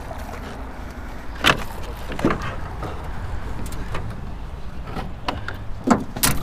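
Knocks and bumps of a camera being handled and gear moving about in an aluminium jon boat. There is a sharp knock about a second and a half in, another just after two seconds, and two more near the end, over a low steady rumble.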